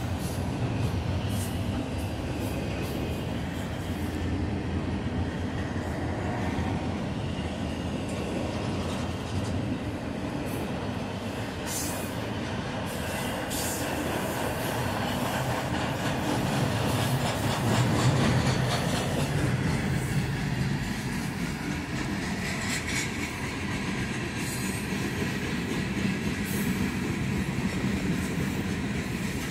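CSX double-stack container freight train rolling past: a steady rumble of wheels on rail with a few sharp clanks from the cars now and then.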